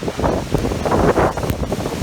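Wind buffeting the microphone in uneven gusts over the rushing water of Skógafoss waterfall, starting abruptly.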